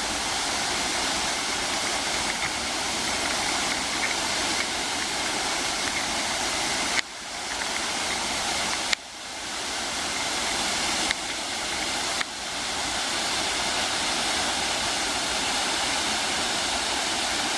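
Waterfall rushing steadily: a small waterfall at dry-season flow. A few faint clicks come in the middle, each followed by a brief dip in the rush.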